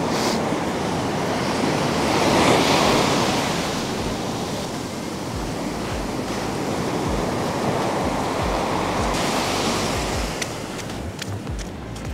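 Surf breaking on a sandy beach: a steady wash of waves that swells a couple of seconds in, with wind buffeting the microphone in low thuds.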